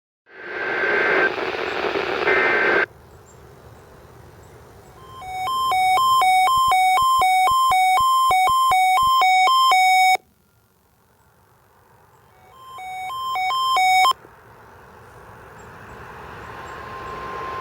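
NOAA Weather Radio reception: a burst of hiss carrying data tones, then an electronic alert alarm beeping rapidly between two pitches for about five seconds. The beeping comes back more briefly after a gap. The hiss then rises again, with a steady tone near the end.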